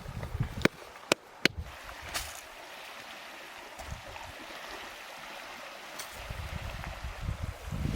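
River water running steadily, with three sharp clicks or knocks in the first second and a half. Low rumbling joins in from about six seconds in.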